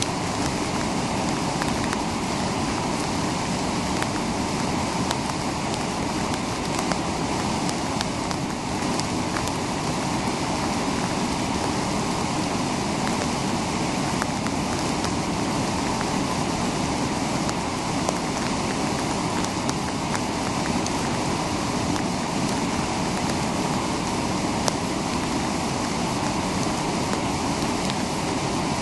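A waterfall and whitewater rapids rushing steadily.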